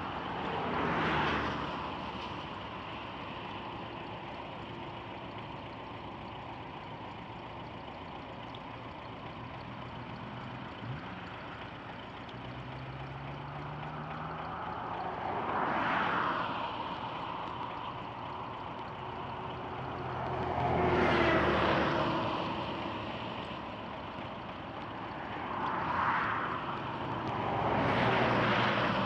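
Road traffic: vehicles passing one after another, each one swelling up and fading away, about five passes over steady background noise.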